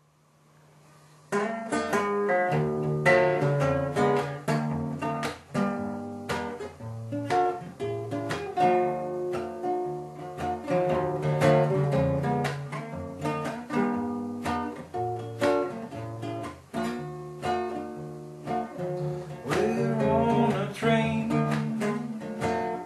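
Classical guitar played solo, picked chords with a moving bass line, starting about a second in.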